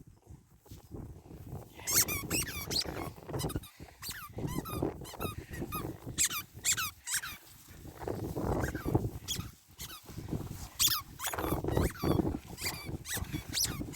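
A German Shepherd chewing a squeaky rubber ball, setting off runs of short, high-pitched squeaks from about two seconds in.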